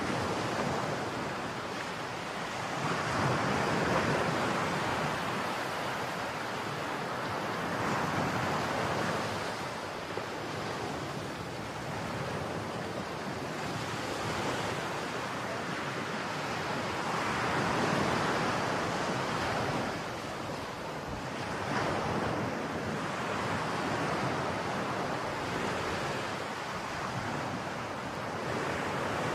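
Heavy surf from a storm-churned sea, waves breaking in a steady wash that swells and eases every few seconds, with wind buffeting the microphone.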